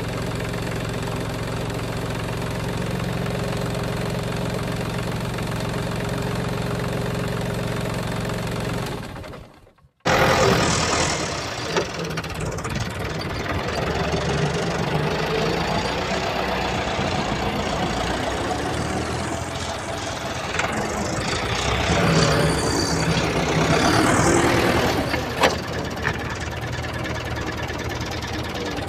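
Miniature toy vehicles running with an engine-like sound. A steady hum cuts off about nine and a half seconds in, and after a moment of silence a rougher running sound comes in, rising and falling, with a few sharp clicks.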